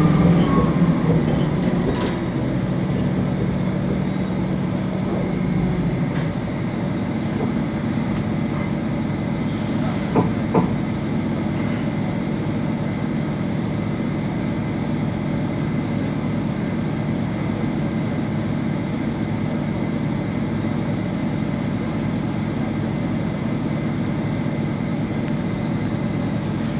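Mercedes-Benz Conecto NGT city bus heard from inside while running: a steady drone from the OM 936G CNG engine, the cooling fan and the Voith DIWA 854.6 automatic transmission, with a thin steady whine over it. A deeper hum fades about six seconds in, and a couple of short knocks come from the cabin.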